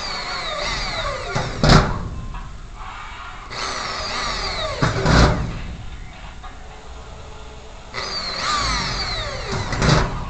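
Handheld electric drill boring small ventilation holes up into a spandrel ceiling panel, three times. Each run is a whine that falls in pitch and ends in a sharp crack.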